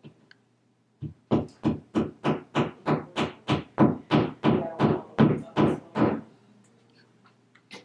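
A hammer tapping plastic wall anchors into drilled holes in a wall, about sixteen even knocks at roughly three a second, stopping about six seconds in.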